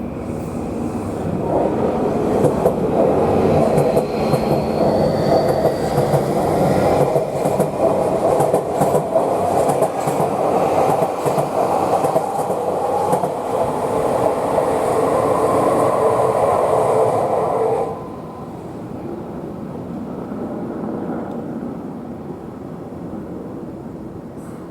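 Tokyu 3020 series electric train running through a tunnel, heard from inside the car: steady wheel-and-rail running noise with a faint rising motor whine. The noise drops suddenly about eighteen seconds in.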